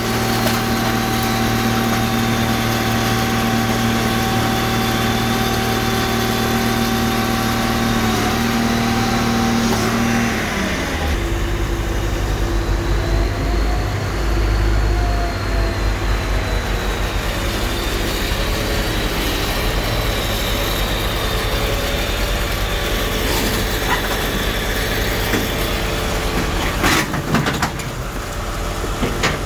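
Car crusher's engine-driven hydraulic power unit running steadily. About ten seconds in, its note drops to a lower, pulsing speed, and a few knocks come near the end.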